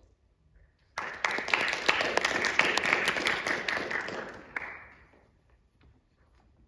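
Audience applauding: the clapping starts abruptly about a second in, runs for some three and a half seconds and dies away.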